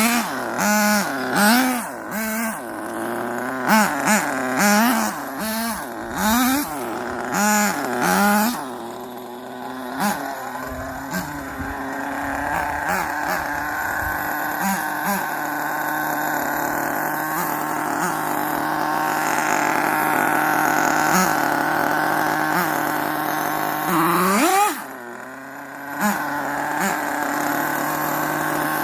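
Electric Rustler RC car with a Jato two-speed transmission being driven: the motor and gear whine rises and falls in quick bursts of throttle, then holds as a long steady whine at speed, with a short rev and a brief drop near the end.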